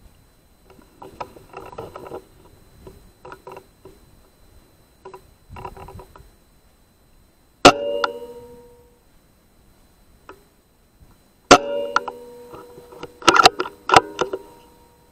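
Two air rifle shots, each a sharp crack followed by a short metallic ring: one about halfway through, the second about four seconds later. A quick run of sharp, ringing metallic clicks follows near the end, with faint scuffling before the first shot.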